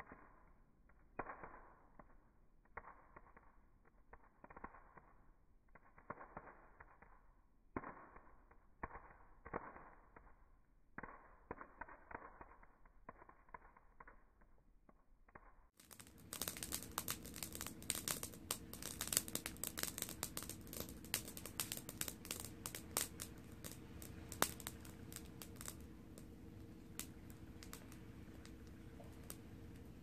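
Campfire burning in a metal fire basket, crackling and popping in irregular sharp snaps. About halfway through the crackling becomes fuller and denser, over a steady low hum.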